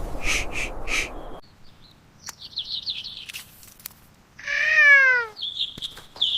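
A cat meowing once, a loud call falling in pitch about two-thirds of the way through. Around it come short, rapid high chirps and a high trill.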